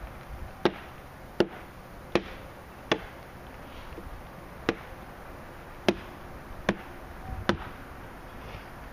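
Chopping wood with a blade: eight sharp strikes, mostly about three-quarters of a second apart, with a pause of about a second and a half near the middle.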